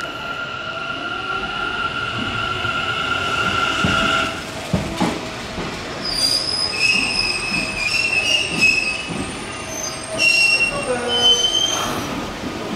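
Electric commuter train moving slowly through the station. A steady high whine stops about four seconds in and is followed by a couple of sharp knocks, then shrill wheel squeals come and go.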